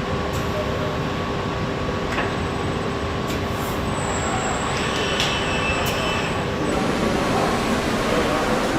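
Factory production-line machinery running: a steady mechanical hum and hiss, with a few sharp clicks and a brief high whine about halfway through.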